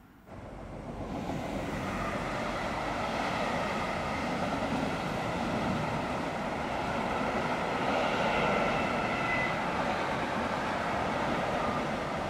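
Freight train of tank wagons rolling past: a steady rumble of wheels on rail, with thin high squealing tones coming and going. It starts suddenly just after the beginning and quickly grows to full loudness.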